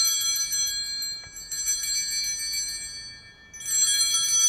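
Altar bells (sanctus bells) rung in three shakes about two seconds apart, each a bright jangle of several high-pitched bells that rings on and fades. They mark the elevation of the consecrated host at Mass.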